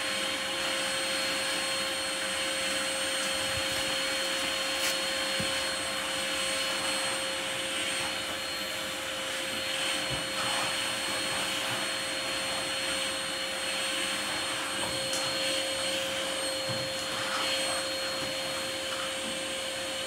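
Canister vacuum cleaner running steadily with a constant hum, with a few faint clicks from the hose being handled.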